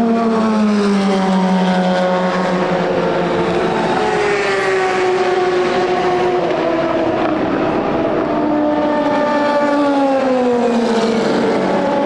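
Endurance race car engines at full racing volume, more than one at once, their pitch falling in the first couple of seconds, climbing about four seconds in, and falling again near the end as they brake and accelerate.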